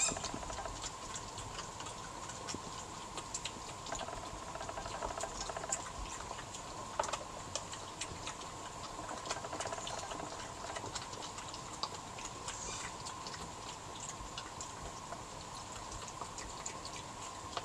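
Two European badgers crunching and chewing peanuts from a plastic feeding tray, a steady run of small crunches and clicks.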